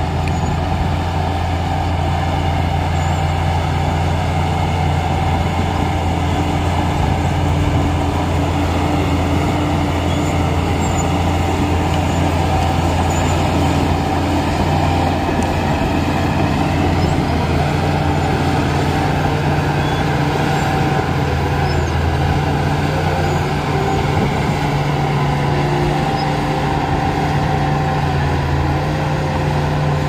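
Shantui crawler bulldozer's diesel engine running steadily under load as the blade pushes wet mud, its note shifting a little about two-thirds of the way through.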